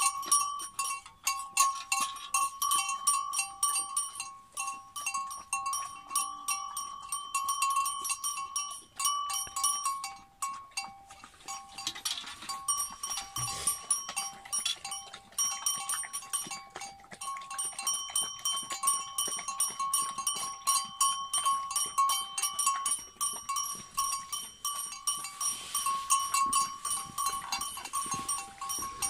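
Two dogs eating from metal bowls: rapid, irregular wet clicks of lapping and chewing, with the odd scrape of food against the bowl. A steady high-pitched tone runs underneath.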